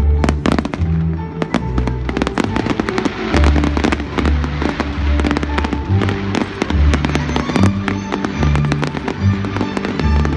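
Fireworks going off in a dense run of sharp bangs, over loud show music with a heavy bass line.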